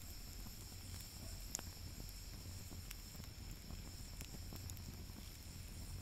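Wood fire burning in a camping fire pit, giving a few sparse, sharp crackling pops, the loudest about a second and a half in, over a faint low steady rumble.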